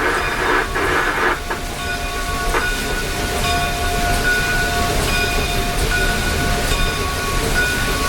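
Inside the cab of Canadian Pacific 2816, a Hudson steam locomotive, moving slowly: a rush of steam hiss for about the first second and a half, then a steady whine of several tones over the locomotive's constant low rumble.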